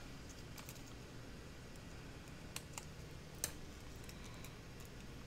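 Faint scattered clicks and light plastic crinkle from handling a clear sheet of stick-on rhinestones, with a few sharper clicks around the middle.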